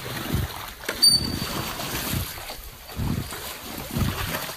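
River water splashing around a rafting boat, picked up by a phone microphone, with low thuds about once a second and one sharp click about a second in.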